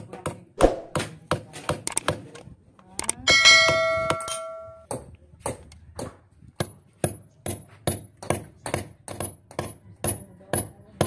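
Hammer striking a steel chisel against the concrete base of a gate post, quick chipping blows at about three a second, digging out the concrete to reach the post's steel bar. A little after three seconds one blow rings out with a long metallic ring.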